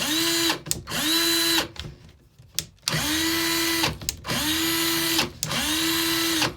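Old Black & Decker cordless drill's motor run in five short trigger pulls of about a second each, each spinning up quickly to a steady whine, with small clicks between pulls. The pulls are on different speed settings, and the high speeds sound like all the rest.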